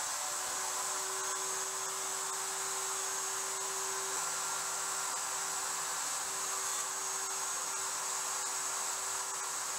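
Router mounted in a router table running steadily with a constant whine over a rushing noise, as box-joint fingers are re-cut to ease a tight fit.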